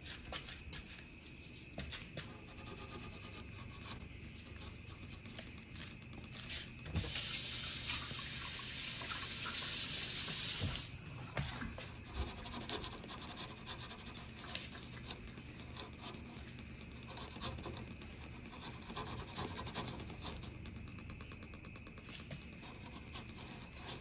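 Scouring sponge scrubbing around a gas range's burner control valves and sheet-metal frame, with scattered small clicks and rubs. About seven seconds in, a louder steady hiss starts and lasts about four seconds.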